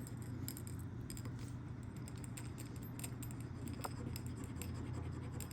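Faint light metallic clicks and scraping as a small metal ring is handled and scratched for an acid test, over a steady low hum.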